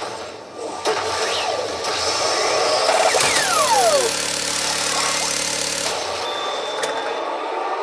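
Pachinko machine sound effects: busy electronic sounds, and about three seconds in a steady low drone that lasts about three seconds, with a falling swoop over its start.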